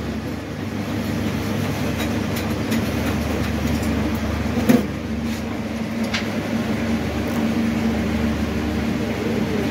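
Motorcycle cylinder boring machine running, a steady motor hum, with a single metal clank a little under five seconds in.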